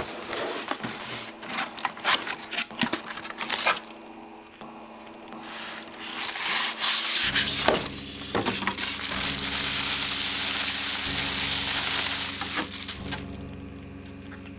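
A run of sharp clicks and scrapes, then several seconds of steady, loud rubbing or scraping that fades near the end.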